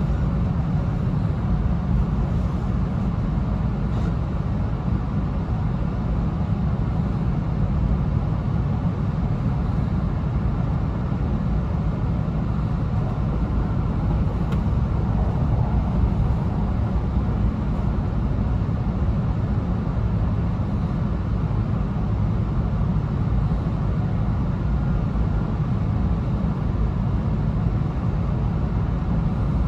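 Interior cabin noise of an E2 series Shinkansen car running along the line: a steady low rumble that stays even throughout.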